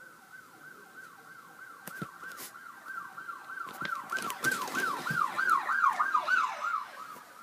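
Police-siren ringtone playing from a phone: a fast yelp of quickly falling wails, about three a second, growing louder to a peak near the end and then fading. A few knocks sound over it.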